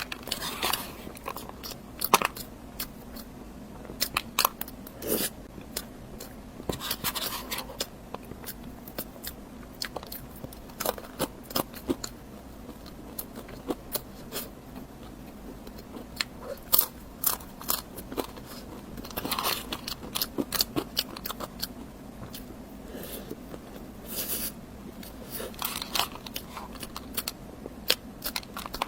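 A person eating close to the microphone: bites and crunchy chewing, with sharp crunches coming in clusters every one to three seconds.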